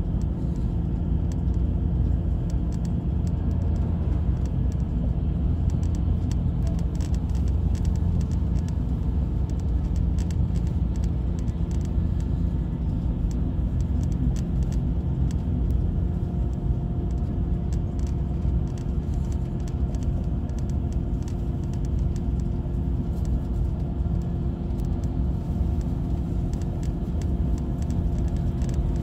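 Inside a GO Transit coach bus on the move: a steady low rumble of engine and road noise with a constant hum of several tones and faint scattered rattles.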